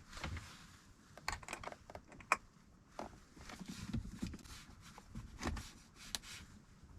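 Irregular light clicks, taps and scraping of a spanner and washer being worked onto a leisure battery's terminal bolt, with one sharper click about two and a half seconds in.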